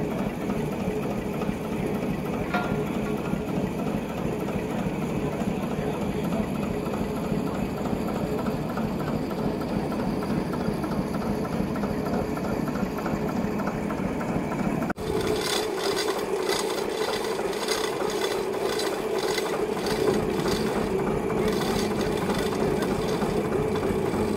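An 1870 mechanical frame saw (scie de long) and its stationary engine running, with a steady mechanical clatter. The sound changes abruptly about halfway, after which a regular clacking of the mechanism stands out more clearly.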